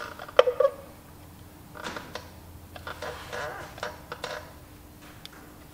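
Steel spanners clicking and clinking on the adjusting nuts of a Massey Ferguson 135 dual clutch as it is being adjusted. A few sharp metal clicks come near the start, then a run of lighter taps and scrapes.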